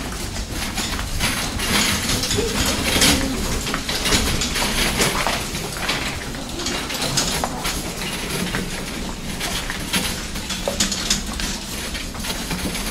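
Clothing rustling and rubbing against a handheld camera's microphone, with scattered knocks and footsteps, while the person carrying it walks.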